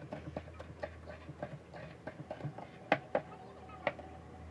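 Irregular light clicks and taps of bowls, a spoon and a plastic tub being handled while making a graham-cracker dessert. There are three sharper knocks, one just under three seconds in, one just after, and one near four seconds.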